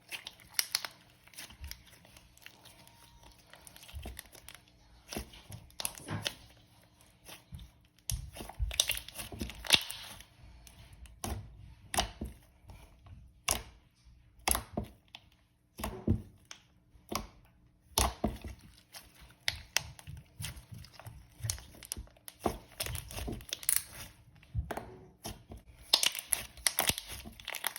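Thick, creamy slime being pressed, stretched and swirled by hand. It gives off irregular sharp pops and crackles as trapped air bubbles burst.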